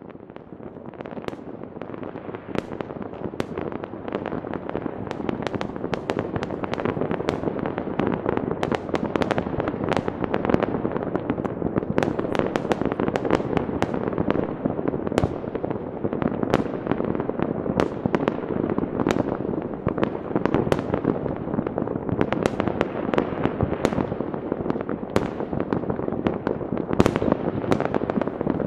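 Fireworks going off all over a town at once, heard from a distance: a continuous crackling rumble with frequent sharp bangs. It swells over the first few seconds, then stays steady.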